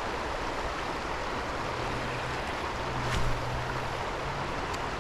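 Creek water running and rippling steadily.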